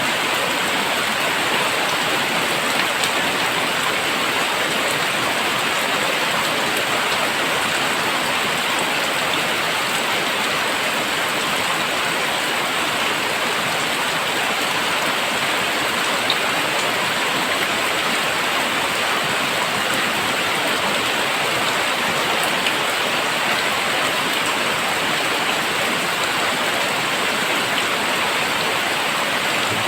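Very heavy rain falling steadily, a dense even hiss with a few faint sharper drop ticks.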